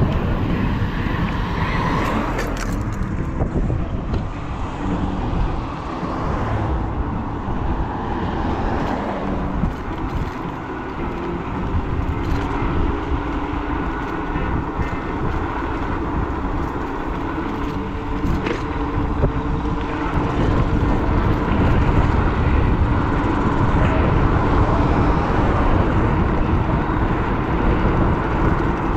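A vehicle travelling along a road: steady road and wind noise with a low rumble, and a few brief knocks.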